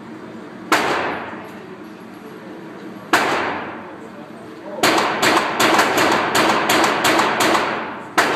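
Handgun shots at a range, each echoing briefly: two single shots, then a rapid string of about ten shots over roughly three seconds, and one more shot near the end.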